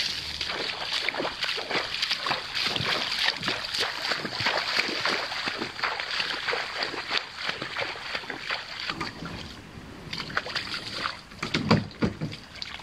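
Kayak being paddled: a continuous patter of paddle splashes and drips on the water, with a few louder hollow knocks near the end.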